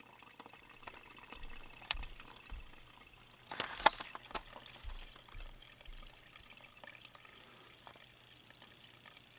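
Faint drain water pouring and trickling out of the open break in a 3-inch PVC main drain line while water is being run upstream in the house. A few sharp knocks about two seconds in and again around four seconds in.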